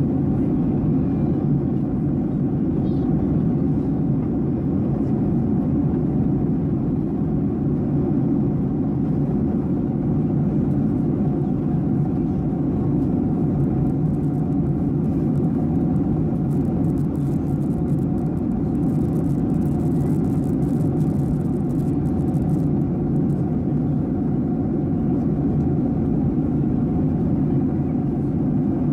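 Steady cabin roar of a Boeing 737-800 at cruise altitude, heard inside the cabin: a low, even rumble of engine and airflow noise that does not change.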